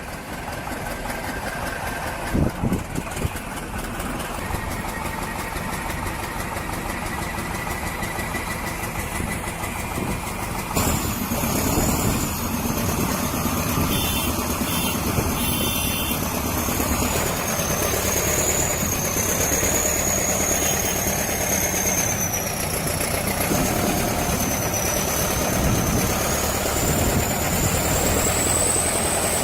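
Engine of a heavy vehicle running steadily. About eleven seconds in the sound changes to another engine, with a high whine that wavers in pitch above it.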